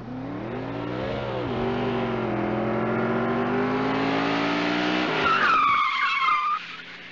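Car engine revving, its pitch bending and then slowly climbing, then tyres screeching for about a second and a half starting about five seconds in.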